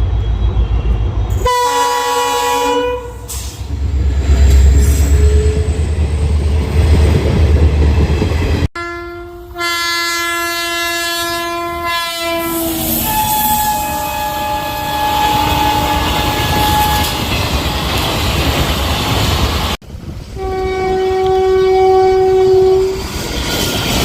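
Indian Railways locomotive horns sounding in several separate blasts, each a chord of steady tones: a short one about a second and a half in, a longer three-second blast around nine seconds in followed by higher held tones, and another near the end. Between the blasts runs the heavy low rumble and clatter of a passing train, and the sound cuts abruptly between passes.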